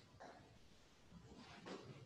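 Near silence: room tone with a few faint, brief rustles, one just after the start and more a little past the middle.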